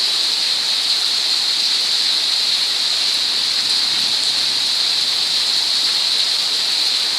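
Rain falling in a steady, dense hiss that never lets up.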